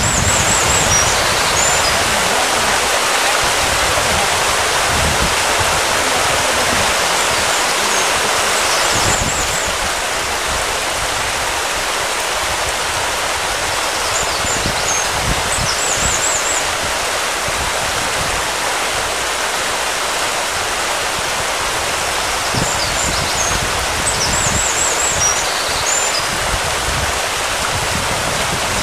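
Steady rushing wash of sea water lapping against the rocks of a breakwater, with short high chirps recurring every eight seconds or so.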